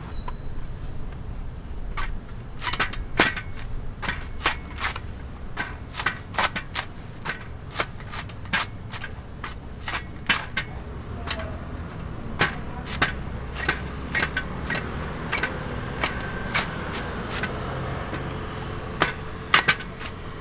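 Green coconut husk being pried and ripped off by hand on an upright blade: an irregular run of sharp cracks and snaps as the fibrous husk splits, over a steady low street rumble.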